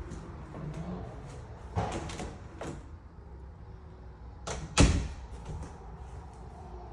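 Interior six-panel door pushed open, with a sharp knock about five seconds in, amid faint footsteps and handling clicks.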